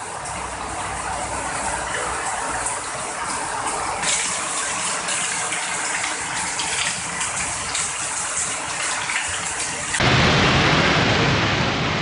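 Floodwater rushing and gushing in a steady wash of noise; about ten seconds in it changes abruptly to a louder, denser hiss of heavy rain.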